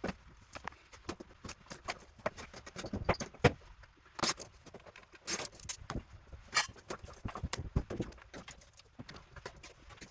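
Irregular metallic clicks and clacks of hand tools and metal parts knocking together as an electronic power supply unit is dismantled.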